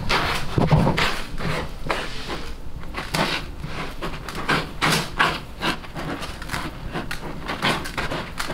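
Cat digging in granular litter inside a plastic top-entry litter box: a run of irregular scratching scrapes, two or three a second.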